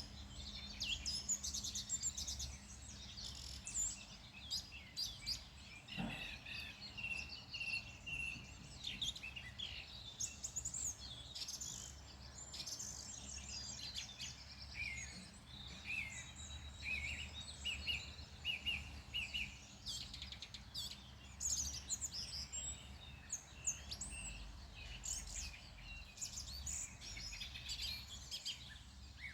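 Several wild songbirds singing and calling at once, a dense chorus of quick chirps and trills, over a low steady rumble. A single short knock sounds about six seconds in.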